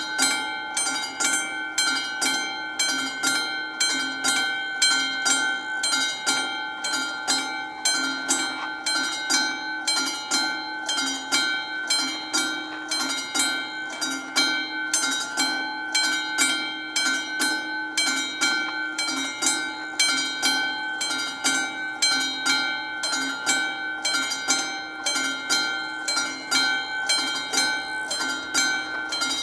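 Level-crossing warning bell of a Czech VÚD crossing signal (the classic mechanical bell) ringing continuously in a steady, fast rhythm of even strokes, the crossing's warning that a train is approaching.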